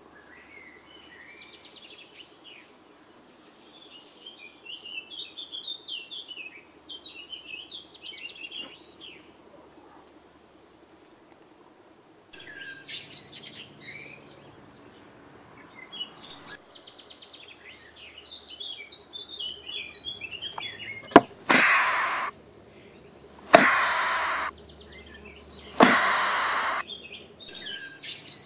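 Great tit calling in short high twittering and churring phrases, then three loud hisses about a second each, every one starting with a sharp knock and fading: the great tit's snake-like hissing display from inside its nest box, a nest-defence threat.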